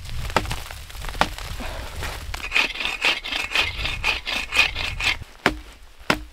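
Dead tree branches being cut with a hand saw. A couple of sharp knocks on the wood come first, then a quick run of rasping saw strokes, about five a second, for nearly three seconds, then two more sharp knocks.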